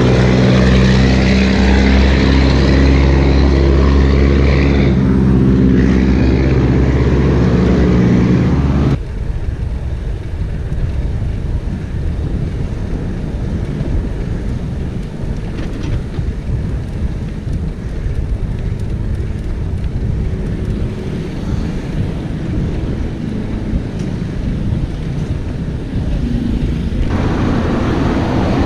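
Heavy dump truck's diesel engine running beside a bicycle, a steady low drone for about nine seconds. Then the sound drops suddenly to wind rumbling over the camera microphone while riding on a quiet street, and louder traffic noise comes in near the end.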